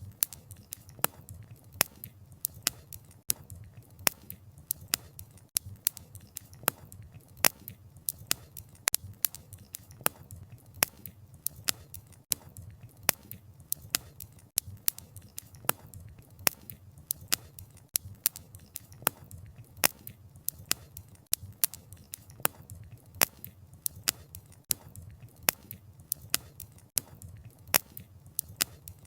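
Wood fire crackling: frequent sharp pops and snaps from burning firewood, several a second and irregular, over a low steady rumble of the flames.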